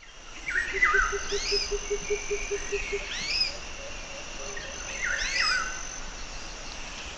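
Birds calling outdoors: short chirps and swooping call phrases, repeated three times. A thin steady high tone runs underneath, and a low rapid pulsing note sounds for the first few seconds.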